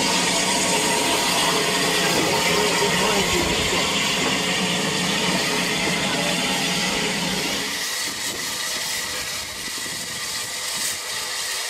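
Steady rushing rumble and hiss of a train running close alongside, heard at an open carriage window as an unrebuilt Bulleid Battle of Britain class steam locomotive and its coaches pass. About eight seconds in it gives way to quieter sound, with a few light clicks, beside a standing Bulleid pacific at a platform.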